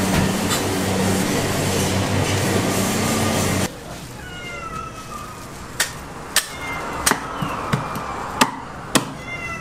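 A loud steady rush with a low hum cuts off abruptly about a third of the way in. Then a meat cleaver chops smoked beef on a round wooden chopping block: about six sharp chops, roughly one every half-second, with thin high gliding calls in the background.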